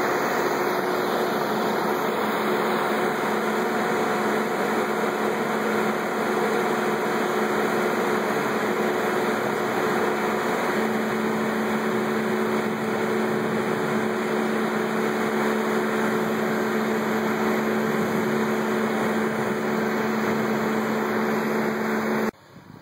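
A steady engine running, a constant droning hum with a few even tones over a noise haze, cut off abruptly near the end.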